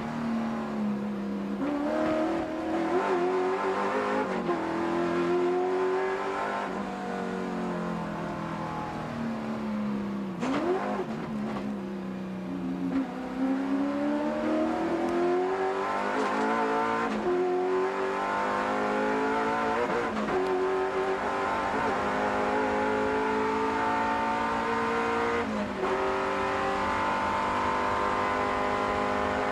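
Holden Racing Team VL Commodore Group A race car's 5.0-litre Holden 304 V8, heard from inside the cockpit at racing speed: the engine note climbs with each gear and drops back on lifts and downshifts. Near the end it holds a steady high note on a long full-throttle run.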